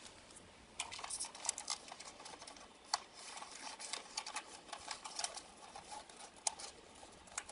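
Crinkly packaging handled by hand: irregular crackling with small sharp clicks, in two busier spells separated by quieter handling.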